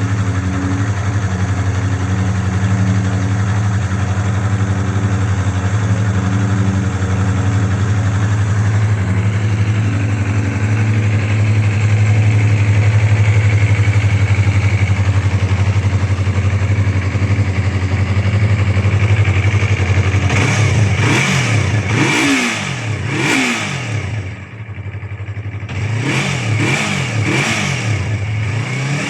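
Yamaha MT-03 motorcycle engine through its stock exhaust, idling steadily for about twenty seconds, then revved with quick throttle blips: three or four about a second apart, a short drop back, then another group near the end.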